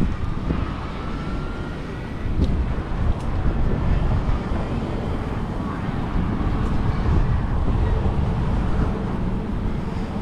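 Steady city street traffic: cars driving past on a multi-lane road.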